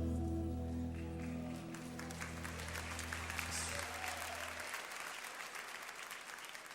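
The band's final held chord, low and sustained, dies away over about four seconds while an audience applauds from about a second in. The clapping thins and fades toward the end.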